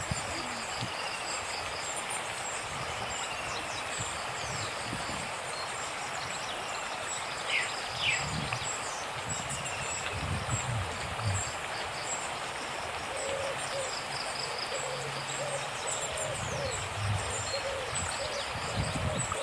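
Flood-swollen river rushing steadily, with birds chirping and whistling short falling notes over it, and a low hooting call repeating several times in the second half.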